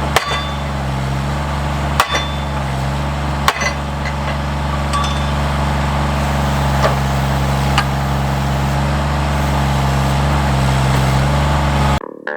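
An engine running steadily, with sharp metallic clinks and knocks every second or two, sparser after about eight seconds. Music comes in at the very end.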